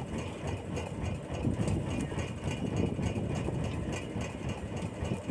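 A fishing boat's engine running steadily at low revs.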